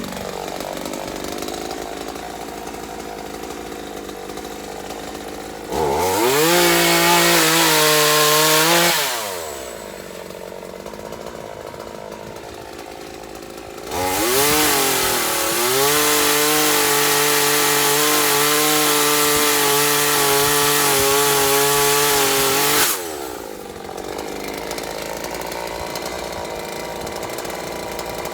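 Chainsaw engine idling, then revved to full speed twice: a short burst about six seconds in, and a longer steady high run of about nine seconds from halfway, each dropping back to idle.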